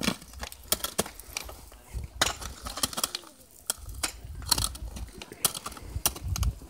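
Ice axe picks and crampon front points striking and biting into waterfall ice as a climber moves up: a string of sharp, irregular strikes with crunching ice.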